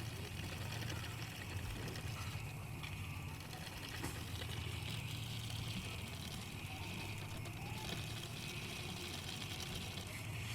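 Bicycle ride at night: a steady low rumble of tyres rolling and wind on the microphone, under a constant high chirring of night insects.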